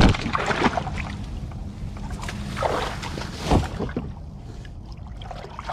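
Clothing and gear rustling and knocking close against a body-worn camera while a hunter packs up, over a steady low rumble. The knocks are loudest at the start and again about three and a half seconds in.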